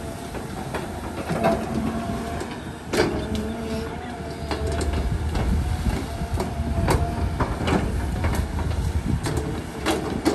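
Caterpillar hydraulic excavator's diesel engine running under working load as the boom and arm move, with a whine that comes and goes and scattered sharp knocks.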